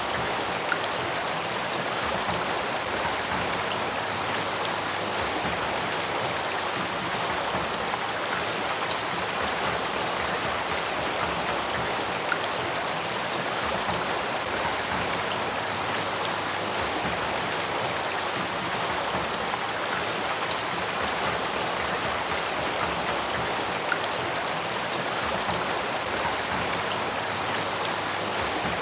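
Stream at the Sacramento River headwaters, water flowing in a steady, unbroken rush, with a few faint ticks.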